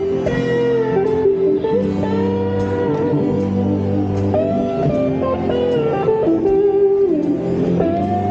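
Live rock band playing on stage: a guitar melody with bent and sliding notes over strummed guitars and steady bass notes, with a long held note near the end.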